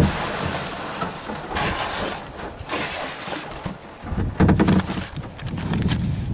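Kayak pushing through thick pond slush and broken ice: swishing, crunching paddle strokes with scattered clicks of ice. Wind rumbles on the microphone from about four seconds in.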